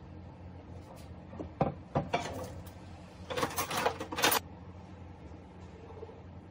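Two sharp knocks and a short clatter as a blender jar is set down on a kitchen counter, then about a second of noisier handling sound, over a low steady hum.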